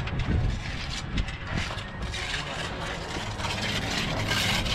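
A mason's trowel scraping and clicking against mortar and brick, with a louder scrape near the end.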